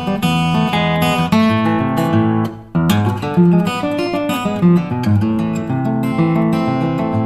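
Background music: strummed acoustic guitar, with a brief break about two and a half seconds in.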